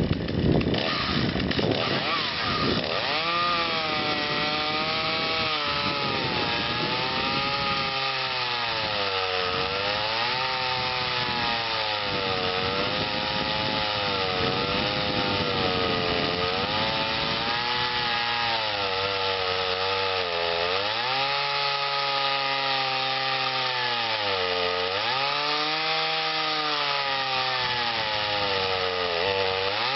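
Gas chainsaw in a Granberg Alaskan mill edger ripping lengthwise along a log, running at high revs. Its pitch sags under the load of the cut and picks back up every few seconds.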